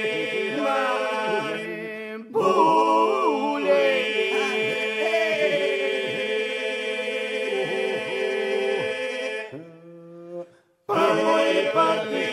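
Unaccompanied Albanian Lab polyphonic singing by a vocal ensemble. Some voices hold a steady drone while solo lines weave and ornament above it. The singing breaks briefly about two seconds in, then fades to a short silence around ten seconds in before the voices come back in together.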